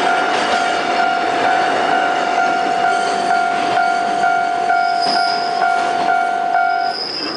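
Level crossing warning bell ringing about twice a second over the rumble and wheel clatter of a passing freight train; the bell stops near the end.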